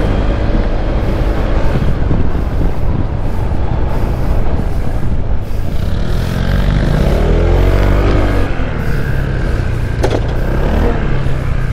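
Honda ADV160 scooter's single-cylinder engine running on the move, with wind on the microphone; the engine note rises and then falls about midway through.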